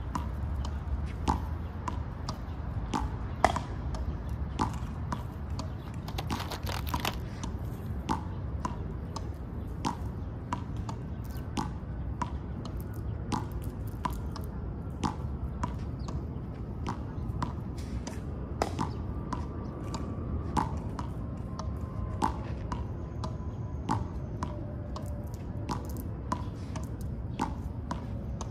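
A gray squirrel gnawing through a peanut shell close to the microphone: a steady run of sharp, crunchy clicks, about one or two a second, over a low rumble.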